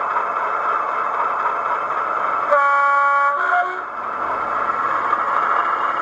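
Loksound XL v4.0 sound decoder in an O gauge diesel locomotive playing an idling diesel engine sound through its small speaker. About halfway through, the two-tone horn sounds: a first note of just under a second, then a short second note at a different pitch, after which the idle carries on.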